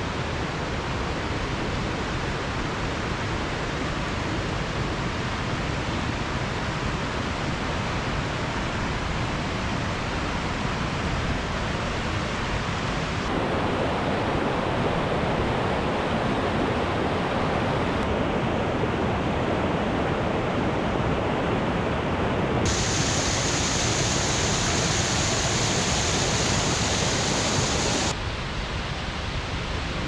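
Rushing floodwater of a creek and waterfall swollen with snowmelt and heavy rain: a steady noise of water. Its tone shifts abruptly several times, growing louder past the middle and hissiest a little after two-thirds through, then dropping back near the end.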